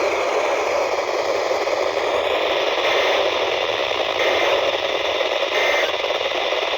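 Steady hiss of radio static from a weather-radio receiver on a weak, noisy signal, with three faint short blips about a second and a half apart in its second half.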